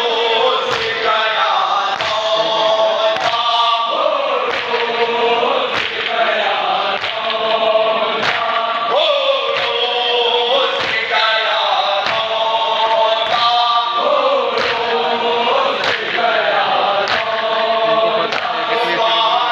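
Men's voices chanting a Shia nauha in unison to the matam rhythm, over the slaps of many hands striking chests together in a regular beat.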